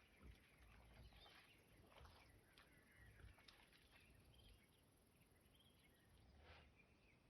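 Near silence: faint outdoor ambience with scattered faint bird chirps and small ticks.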